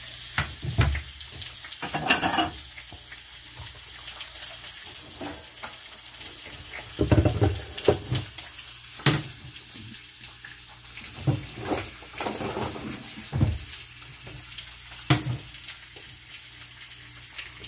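Thin-sliced pepperoni and salami frying in a hot pan, a steady sizzle, with scattered knocks and clunks from handling things around it.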